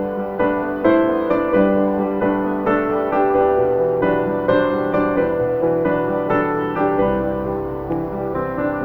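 Slow, gentle piano music, one note or chord after another with soft attacks over sustained tones.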